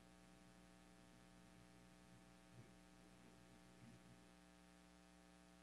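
Near silence: a faint, steady electrical hum, with two tiny brief sounds in the middle.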